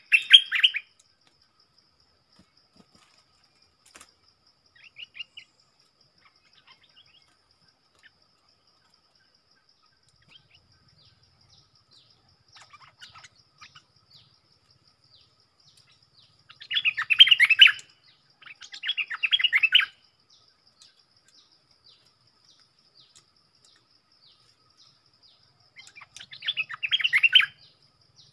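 Stripe-throated bulbuls singing in short bursts of about a second: one at the start, two close together past the middle, and one near the end. A faint, steady, high insect trill runs underneath.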